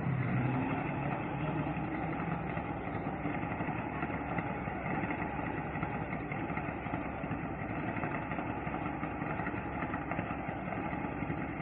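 An engine idling steadily at an even level.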